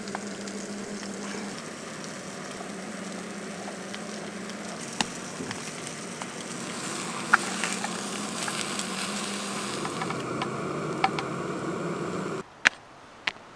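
Food sizzling in a frying pan on a propane camp stove: a steady frying hiss with a few light clicks and taps. Near the end the sizzle cuts off suddenly, leaving a few sharp clicks.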